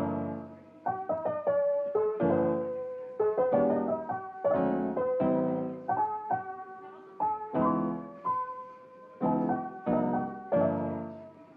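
Background piano music: struck chords and melody notes, each sounding and then dying away.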